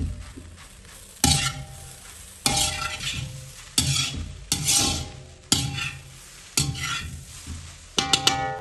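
Metal spatula stirring and tossing fried rice in an iron kadai, each stroke starting with a sharp clank against the pan, about one a second, over a light sizzle. Near the end a few quick taps on the pan leave it ringing.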